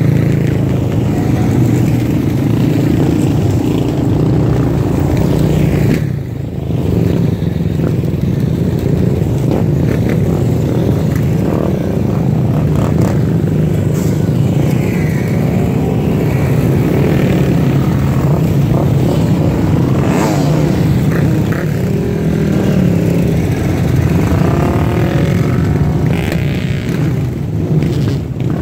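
Quad bikes and dirt bikes passing close one after another, their engines running continuously and revving up now and then.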